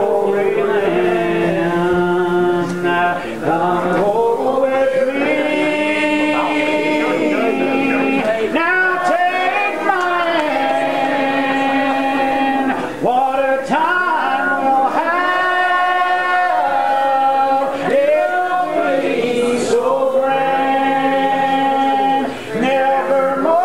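Congregation singing a slow hymn together, the voices holding long notes.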